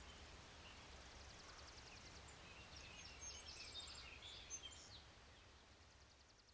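Faint outdoor ambience: several birds chirping and a fast, even high trill over a low steady rumble, fading out near the end.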